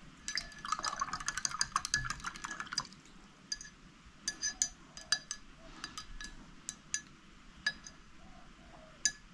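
Paintbrush being rinsed in a glass jar of water, the brush clinking against the glass in a quick rattling run for about three seconds, then in scattered single taps.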